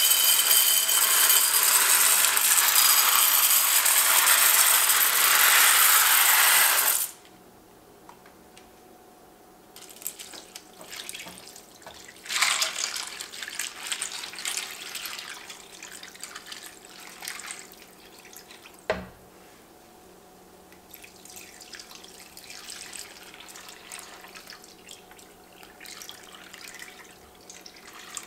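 Dry shell pasta poured from a cardboard box, rattling loudly into a ceramic baking dish for about seven seconds and stopping suddenly. Then liquid is poured from a glass measuring cup into the dish in two runs, broth and then milk, splashing over the pasta. A single sharp knock comes between the two pours.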